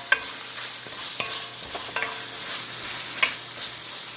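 String beans and minced pork sizzling in a frying pan while being stirred, with a steady hiss of frying. A utensil knocks against the pan four times, each knock ringing briefly.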